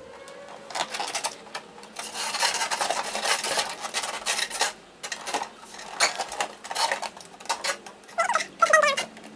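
Cardboard chair panels being folded and pushed into place: stiff cardboard scraping and rustling against cardboard, with frequent sharp knocks and clicks as the pieces are pressed in.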